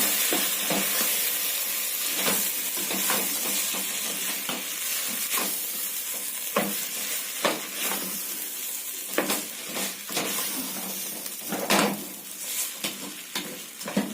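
A pot of pilau mixture (rice, meat and browned onion with spices) sizzling in hot oil while it is stirred, a spoon scraping and knocking against the pot at irregular moments, the loudest knock near the end.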